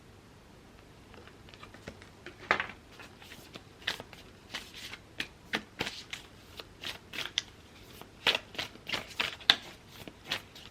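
Tarot cards being shuffled by hand: a quick, irregular run of short papery slaps and rustles that starts about two seconds in.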